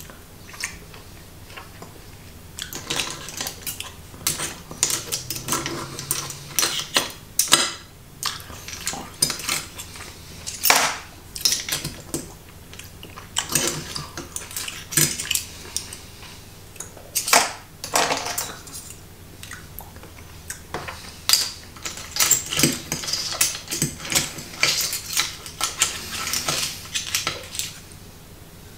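Metal fork and spoon clinking and scraping against a plate of clams in their shells as spaghetti is twirled and eaten, in irregular clicks and clatters.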